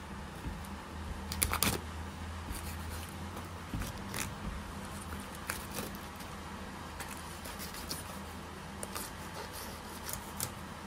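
Filleting knife cutting along the rib cage and through the scales of a large tuskfish, with scattered light clicks and scrapes, the loudest cluster about a second and a half in. A steady low hum runs underneath.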